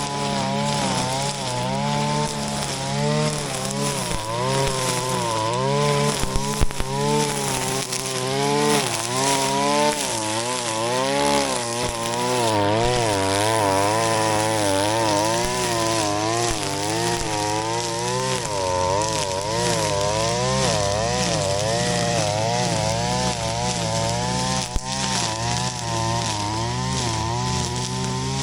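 Shindaiwa RK3026-PT brush cutter's 25.4 cc two-stroke engine running under load while cutting grass, its pitch wavering up and down continually as the load changes. A brief sharp knock sounds near the middle.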